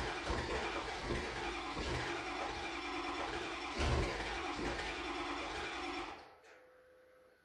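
Ford 6.0 Power Stroke V8 turbodiesel running with uneven low pulses shortly after a cold start, on an engine that the owner reckons is due for new injectors and glow plugs. There is one louder bang about four seconds in. The engine sound drops away about six seconds in.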